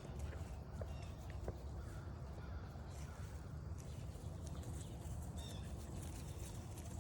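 Outdoor forest ambience: a steady low rumble with a few short bird calls and some light clicks.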